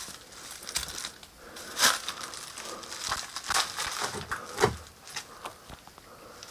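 Footsteps crunching over loose stones and dry leaves: an irregular series of crackles and scrapes, loudest about two seconds in and again near five seconds.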